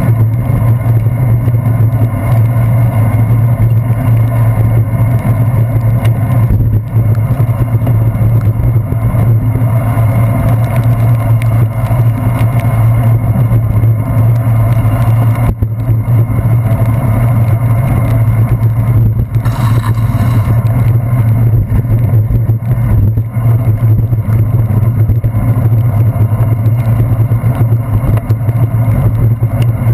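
Steady, loud, muffled rumble of a bicycle riding on wet pavement in the rain, as heard through a handlebar-mounted GoPro Hero 2, with motor traffic going by alongside.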